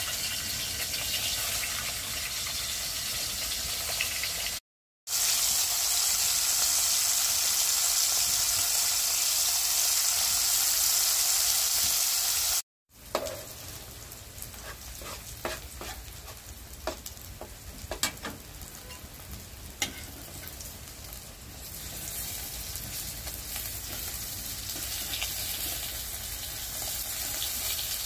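Salted anchovies sizzling as they fry in oil in a metal pan, with a spoon clicking against the pan as the fish are turned. The sizzle is loudest for several seconds in the first half, then settles lower with scattered clicks.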